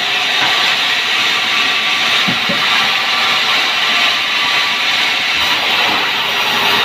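Large sawmill band saw running steadily, a loud hissing whir from the blade and drive, with a couple of light knocks a little over two seconds in.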